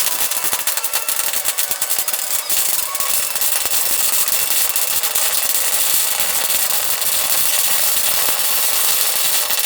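Loud, continuous rattling noise of metalworking, dense with fast irregular clicks.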